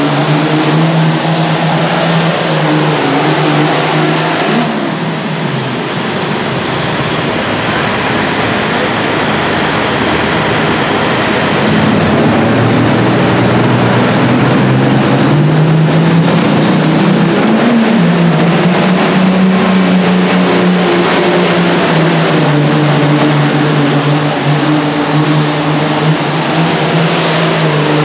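Turbocharged diesel Super Farm pulling tractors running hard at full throttle, loud. About five seconds in, one run winds down and its turbo whistle falls away. Later another tractor comes up to full power, its turbo whine rising to a high pitch and holding steady until near the end.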